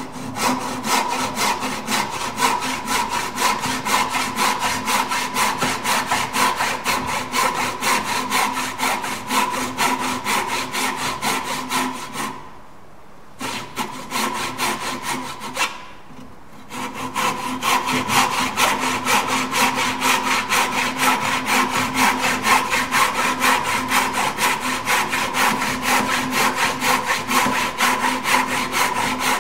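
Hand saw ripping down along the grain into the end of a wooden board, cutting a bridle joint: a steady run of quick sawing strokes with a held ring under them, stopping briefly twice a little before halfway.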